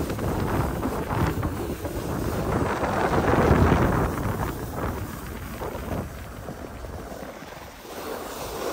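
Wind rushing over the microphone while skiing downhill, with skis sliding over packed snow. The rush is loudest about three to four seconds in and eases after that.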